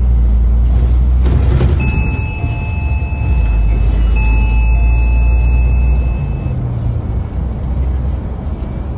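Articulated city bus running, its engine and drive a loud low drone heard from inside the passenger cabin. A high steady tone sounds twice, each about two seconds long, starting about two seconds in.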